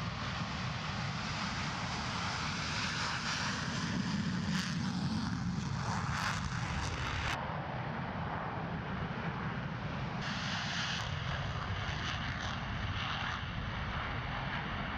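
Jet noise from McDonnell Douglas F-15C Eagle fighters' twin Pratt & Whitney F100 turbofan engines at takeoff power as the jets take off one after another, a continuous, loud rumble loudest about four to six seconds in.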